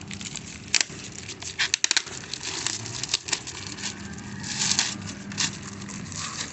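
Polythene wrapping and packing tape on a laptop package being handled, pulled and peeled by hand: irregular crinkling and crackling with a few sharp snaps.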